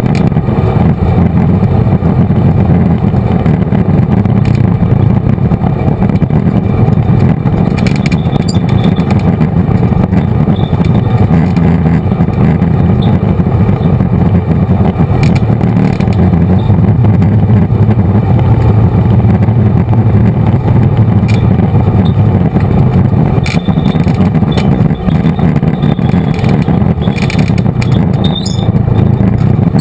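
Off-road vehicle's engine running steadily at trail speed, loud and close, with scattered clicks and rattles from riding over the rough dirt trail.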